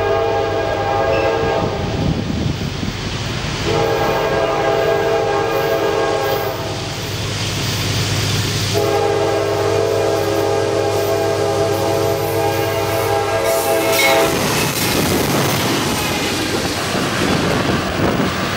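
CSX GE C40-8W diesel locomotive sounding its air horn in long blasts: one that ends about two seconds in, then two more, the last about five seconds long, over the engine's steady drone. About fourteen seconds in, the locomotive passes close by with loud engine and wheel-on-rail noise as the freight cars roll past.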